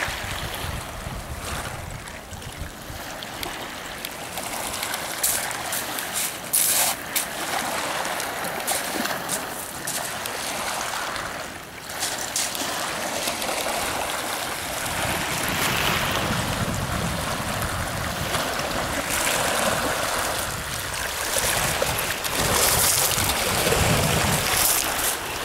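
Small waves lapping and washing over a pebble beach, with wind buffeting the microphone now and then.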